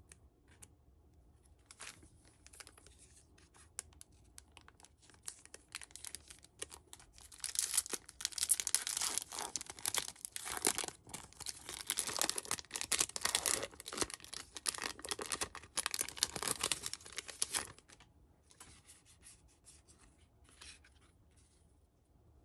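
A foil Pokémon booster pack wrapper being crinkled and torn open by hand, with loud crinkling and tearing for about ten seconds in the middle. Quieter rustles and clicks of card handling come before and after.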